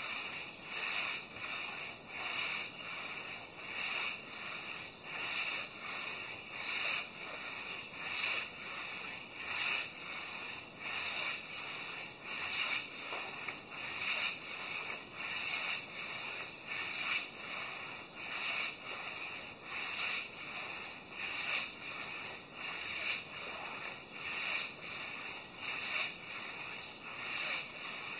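Hand saw cutting through a large maple log, with even back-and-forth strokes at a steady rhythm of about three every two seconds.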